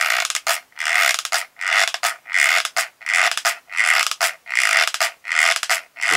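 Hot glue gun's trigger pumped over and over, feeding the glue stick with a short mechanical scrape on each pull, about two pulls a second.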